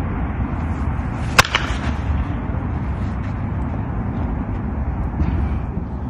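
A softball bat striking a pitched slowpitch softball: one sharp crack about a second and a half in. Steady low wind rumble on the microphone runs underneath.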